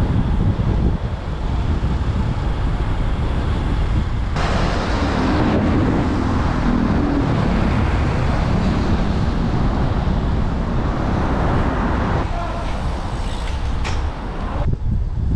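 Wind rumbling on the microphone of a moving bicycle, with road traffic noise. A louder hiss of road and traffic noise sets in about four seconds in and cuts off sharply near the end.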